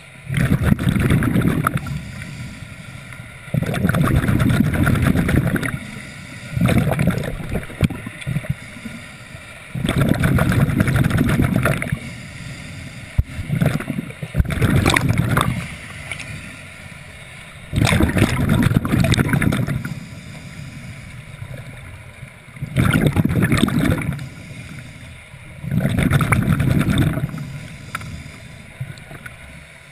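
Scuba diver breathing through a regulator underwater: exhaled bubbles rumble and gurgle in bursts of one to two seconds, about eight times, with quieter hiss between breaths.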